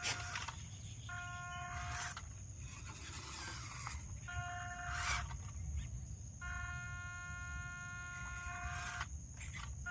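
Toy RC car's small electric drive whining at one steady pitch in several bursts, cutting in and out as the throttle is applied and released. Sharp knocks and clatter come as it bumps over rough ground, over a low rumble.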